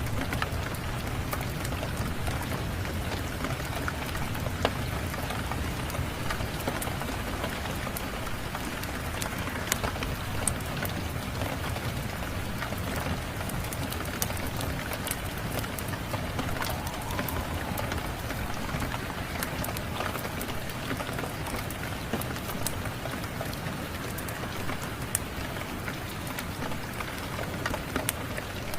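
Steady rain falling, with scattered sharp crackles and pops of a wood fire.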